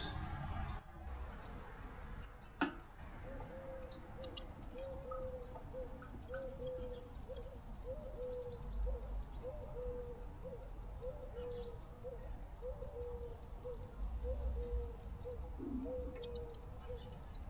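Water glugging out of an upturned bottle into the funnel of a recording rain gauge: a steady run of short, even-pitched glugs, a little over one a second. The glugs are preceded by a single sharp knock.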